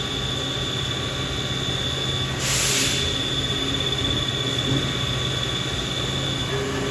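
Steady machinery running with a low hum and a thin, steady high whine, with a short burst of hiss about two and a half seconds in.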